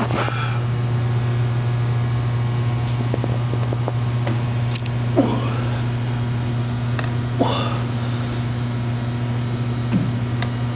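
Steady low hum of gym ventilation. Over it come three short, forceful exhalations of effort from a lifter, starting about halfway through and a couple of seconds apart.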